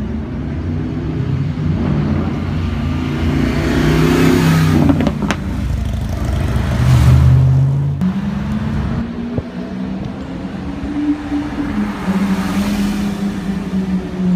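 Cars driving past one after another, each engine note rising as it nears and falling as it goes. A Ford Mustang passes around the middle at the loudest point. In the second half a Lamborghini Aventador's V12 grows louder as it approaches at low speed.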